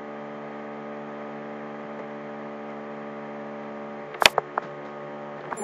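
Steady electrical hum made of several pitched tones, with a quick run of three sharp clicks about four seconds in and one more click near the end.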